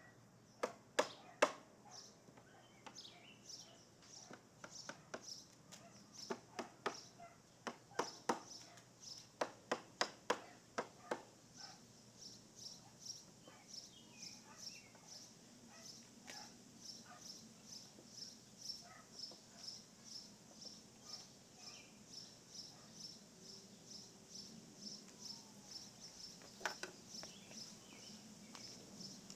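A string of sharp knocks in the first ten seconds or so, with a couple more near the end, over a high chirp repeating about twice a second throughout, from an insect or bird.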